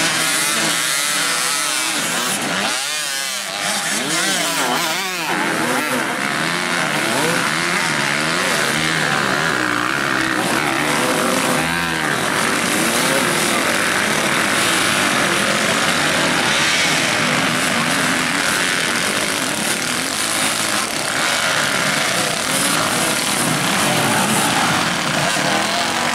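Several enduro dirtbike engines revving hard and unevenly, their pitch repeatedly rising and falling as the bikes struggle to climb through deep mud.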